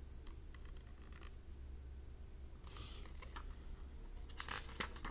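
Pages of a hardcover picture book being turned and handled, the paper rustling in a few short spells, most clearly about three seconds in and again near the end, over a steady low hum.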